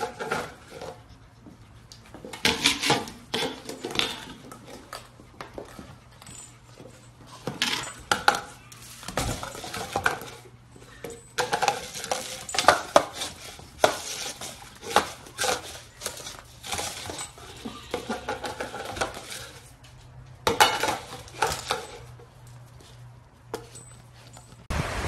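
A Labrador puppy pushing and knocking a metal food bowl about on a tile floor: irregular metallic clattering and clanks, in bursts with quieter gaps between.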